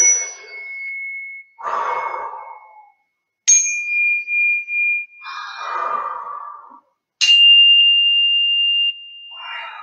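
Small handheld chime struck three times with a beater, each strike ringing out for a second or two, and each ring a little higher in pitch than the last. Deep breaths are blown out between the strikes.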